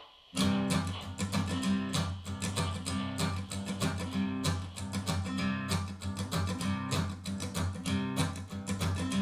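Music played back through Piega Premium Wireless 501 Gen 2 loudspeakers: a strummed acoustic guitar with bass starts about half a second in, after a brief pause, and keeps a steady, even strumming rhythm.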